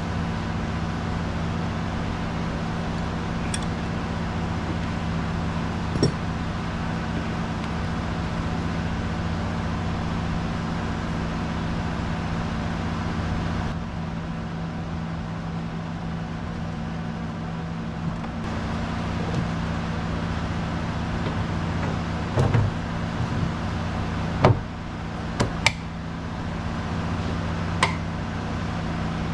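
A steady engine drone with a low, even hum. Over it come a few sharp metal knocks and clicks from work on an outboard motor, most of them near the end.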